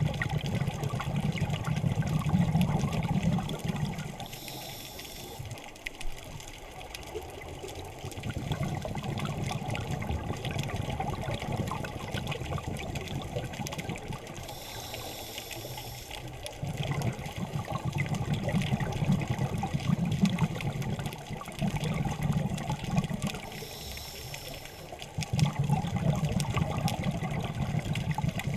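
Scuba diver breathing through a demand regulator underwater: long bubbling exhalations, each followed by a short hissing inhalation, three breaths in all, about every nine or ten seconds.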